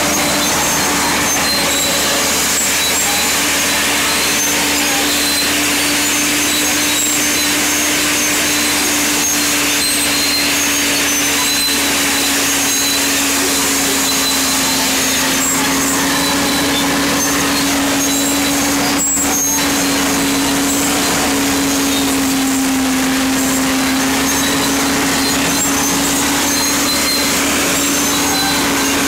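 A FiatAllis AD20B crawler dozer's replacement Iveco diesel engine running hard with a steady drone while the machine rips tough, rocky ground with its rear ripper; the engine note dips slightly past the middle. Short high squeaks and clicks run through it, with one sharp knock about two-thirds of the way through.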